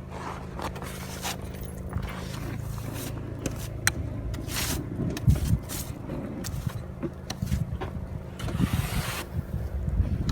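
Car engine running with a steady low hum. Several low rumbles and a few sharp clicks come over it in the second half.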